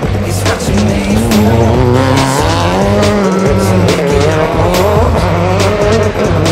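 Rallycross race car engines revving up and falling back again and again as they shift through the gears, with background music underneath.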